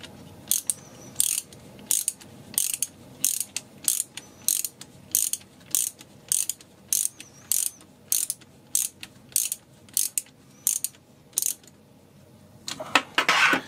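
Ratcheting screwdriver clicking as it is worked back and forth, tightening a small shock-mount screw on an RC truck: an even run of sharp ratchet clicks, about three a second, that stops about two seconds before the end, followed by a brief louder clatter.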